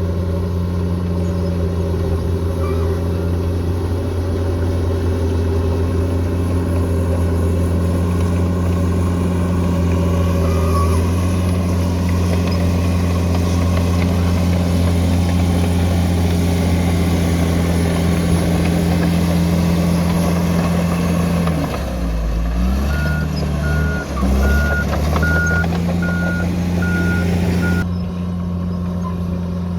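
Bulldozer's diesel engine running steadily under load. About three quarters through, its note dips and picks up again, and a reversing alarm beeps regularly for a few seconds as the machine backs up.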